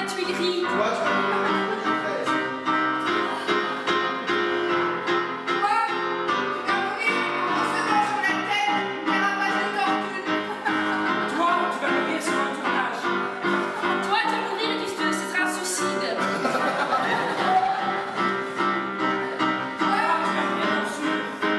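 Several voices singing together over sustained chords played on an electric keyboard.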